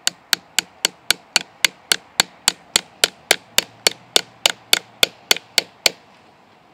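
Claw hammer driving the nail of a plastic nail-on electric-fence insulator into a tree trunk: quick, even blows at about four a second that stop about six seconds in.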